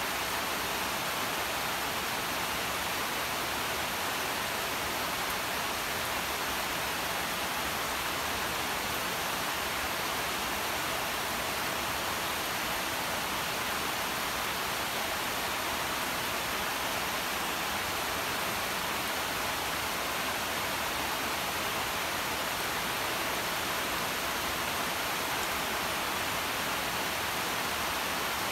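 Steady rain falling on foliage: an even, unbroken hiss with no separate drops, thunder or other events standing out.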